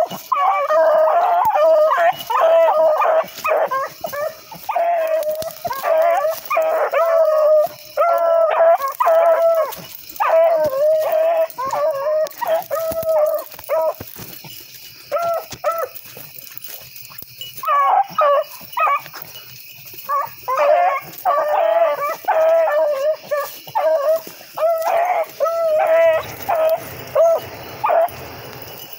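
A pack of rabbit hounds baying while running a rabbit, several dogs calling over one another in quick, repeated notes. The cry thins out for a few seconds about halfway through, then picks back up.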